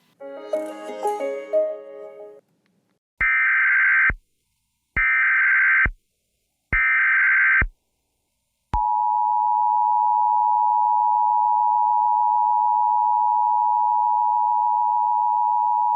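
Emergency Alert System broadcast of an Amber Alert: three short bursts of SAME header data tones, then the steady two-tone EAS attention signal (853 and 960 Hz) for the last seven seconds. A few notes of music end about two seconds in, before the bursts.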